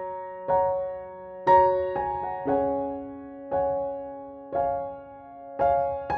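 Slow, gentle background piano music, with soft chords struck about once a second and left to ring out.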